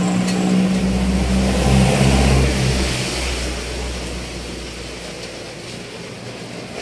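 A motor vehicle passing on the road, its engine and road noise building to the loudest point about two seconds in and then fading away.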